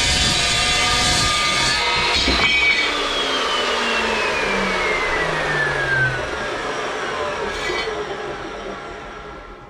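Evolution metal chop saw cutting through 50 mm steel box section. About two and a half seconds in the cut ends and the saw is switched off; its motor whine then falls steadily in pitch and fades as the blade spins down.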